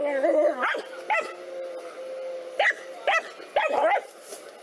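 A dog barking repeatedly at a reared cobra, about six short yelping barks spaced unevenly.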